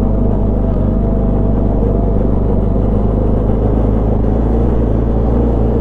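Benelli TRK 502's parallel-twin engine running at a steady, even speed while riding, heard from a camera on the motorcycle, with rumble from the gravel road underneath.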